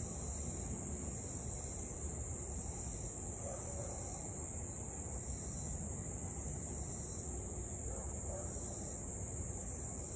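Steady, high-pitched chorus of summer insects, swelling and easing slowly, over a faint low background rumble; no dog barking is heard.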